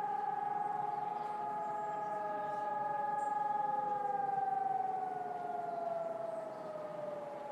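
Several HELIN electronic civil-defence sirens sounding together in the distance during a monthly test alarm, their horns facing away. Their overlapping steady tones slide down in pitch one after another: one from about half a second in, the strongest from about halfway through.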